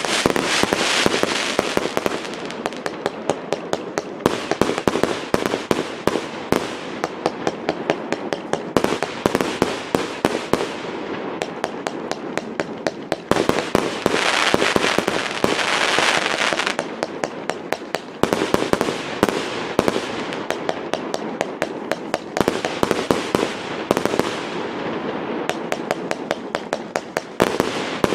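Fireworks display heard close up: a rapid, nearly continuous barrage of aerial shell bangs. A rushing, hissing crackle swells up near the start and again about halfway through.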